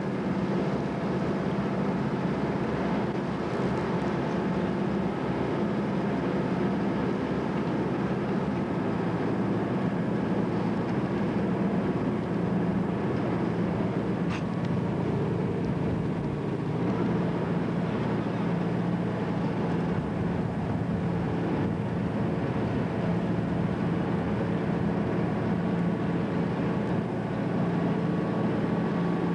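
Twin two-stroke Detroit Diesel V-16 engines of a converted torpedo retriever running steadily under way, a constant diesel drone with a low hum.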